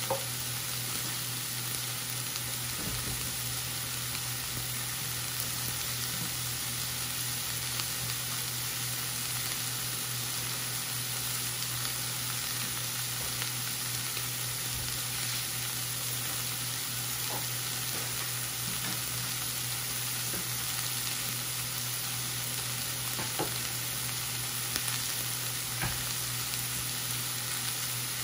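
Chicken fajita wrap with melting cheese sizzling steadily in a hot pan, with a few faint ticks now and then.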